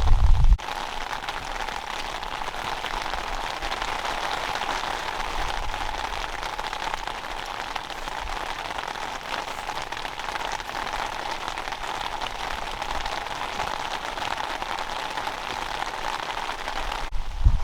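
Steady rain falling on a surface, an even hiss of many small drop ticks. A loud low rumble at the very start cuts off abruptly about half a second in.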